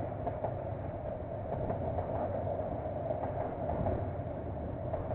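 Freight train's container wagons rolling past, a steady rumble with a few faint clicks from the wheels, heard through a security camera's microphone.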